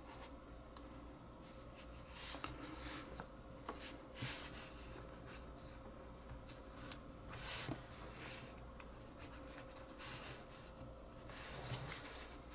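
Light scrapes, rubs and small clicks of small metal lighter valve parts being handled at close range, coming in short irregular bursts over a faint steady hum.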